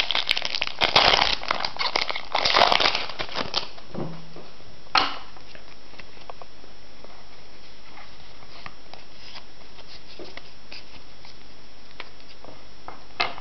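Pokémon trading card booster pack's foil wrapper crinkling and being torn open, dense crackling for the first three and a half seconds, then one sharp crackle about five seconds in, followed by faint ticks of card handling.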